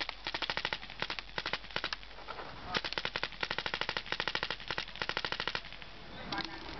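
Tippmann A5 paintball marker with an E-Grip electronic trigger firing in rapid strings of shots, about ten a second, in two long bursts with a short pause between them.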